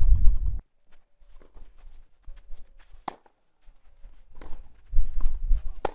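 Tennis ball struck by rackets in a rally on a clay court: a sharp hit about three seconds in and a louder one near the end, among a few softer clicks, with a low rumble at the start and again over the last second and a half.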